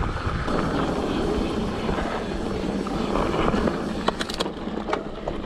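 Mountain bike rolling fast over a loose, rocky dirt trail: a steady rush of tyre noise and wind on the microphone, with a few sharp clicks and knocks about four seconds in as the bike rattles over stones.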